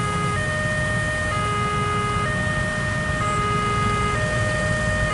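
Railway level-crossing warning alarm sounding: an electronic two-tone signal that switches between a higher and a lower pitch about once a second, over a steady hiss of heavy rain.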